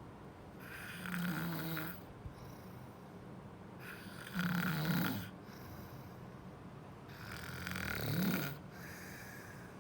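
Snoring: three snores at an even rhythm of about one every three seconds, each lasting a second or more, with quieter breathing between them.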